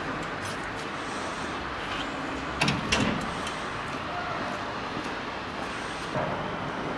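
Steady outdoor background noise with two sharp knocks a little before the middle as the metal entrance door of a building is pushed open and swings, and a softer knock near the end.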